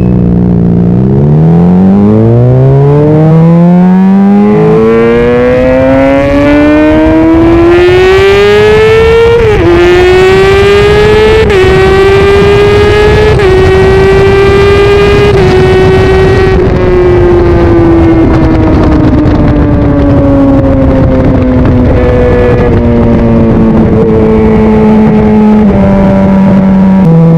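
Honda CBR600RR's inline-four engine pulling hard from low revs, its pitch climbing for several seconds, then through three or four quick upshifts. About halfway it holds steady, then the revs fall slowly as the bike slows, with a downshift near the end. A steady rushing noise runs underneath.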